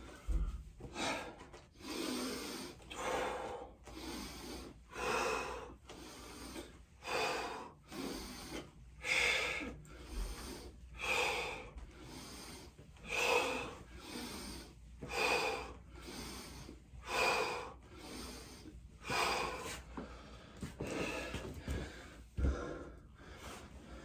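A man breathing hard and fast, out of breath from exercise, in rhythmic loud inhales and exhales about one breath every two seconds.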